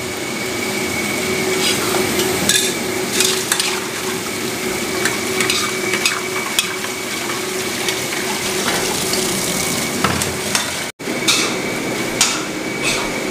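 Squid, green beans and tofu sizzling as they are stir-fried in a wok, with a metal spatula scraping and clacking against the pan many times. The sound drops out for an instant about eleven seconds in, then goes on.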